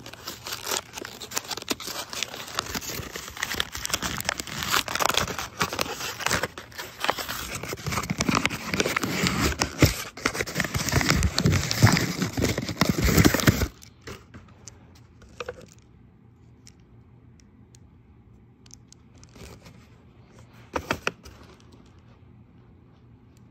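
Stapled paper bag being torn open and crumpled by hand: dense crackling and tearing that stops abruptly about fourteen seconds in. A few light clicks follow as a plastic bead bracelet is handled.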